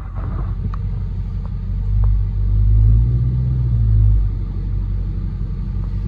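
Car engine rumbling while driving, with road noise; the rumble swells louder for about two seconds midway, as the car pulls harder, then settles back to a steady cruise.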